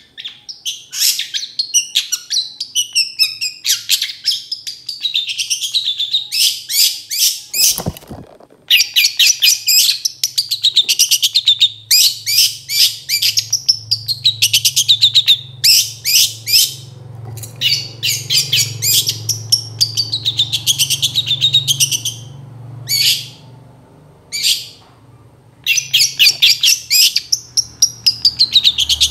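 Long-tailed shrike (cendet) singing: loud, fast chattering volleys of high, rapidly repeated notes, the phrases dipping and rising in pitch, broken by several short pauses. There is a short low thump about eight seconds in.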